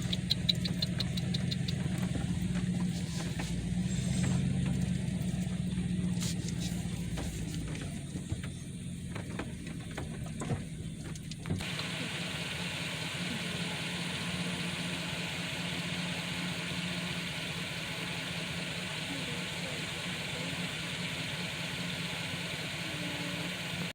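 Vehicle engine and road noise heard from inside the cab while driving: a steady low rumble. About halfway through the sound changes abruptly to a steadier, even hiss.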